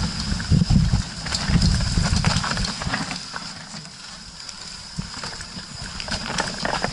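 Mountain bike riding down a dirt singletrack: tyre rumble and wind buffeting on the action camera's microphone, with rattles and clicks from the chain and frame over the bumps. The rumble dies down about three seconds in as the bike slows into a tight switchback.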